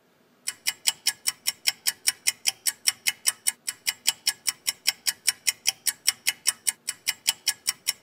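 Rapid, even ticking, about five sharp ticks a second, starting about half a second in.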